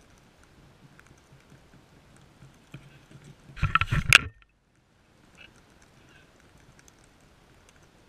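Sulphur-crested cockatoos feeding on seed at close range: faint, scattered clicks and crunches of beaks working the seed. About three and a half seconds in comes a loud burst of knocking right at the microphone, lasting under a second, after which the sound cuts out for about a second.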